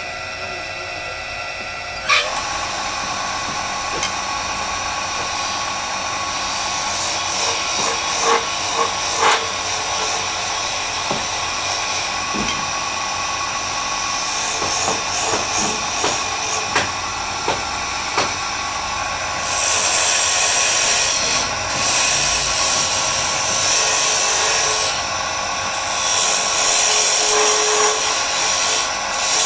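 Wood lathe running steadily while a hand chisel cuts grooves into a spinning wooden dowel, a scraping cutting noise that comes in bursts and is loudest in the second half. A sharp knock about two seconds in.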